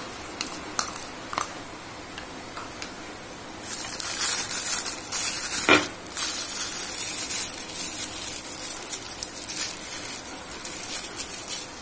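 A spoon clicking and scraping in a bowl as batter is scooped out, then a thin plastic carry bag crinkling and rustling loudly as it is handled and twisted shut, with one sharp knock about six seconds in.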